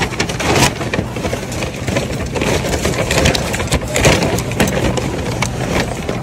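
Shopping items being handled and moved around: an irregular run of knocks, rustles and clatters over a steady low hum.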